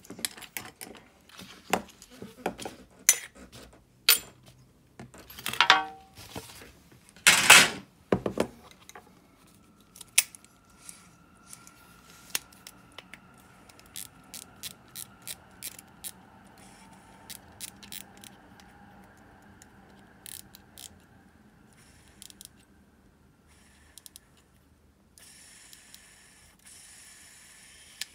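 Shimano Calcutta Conquest 400 baitcasting reel being handled and assembled: a run of sharp metal clicks and knocks over the first nine seconds or so, then a faint steady whir that slowly fades away, with scattered light clicks and a short hiss near the end.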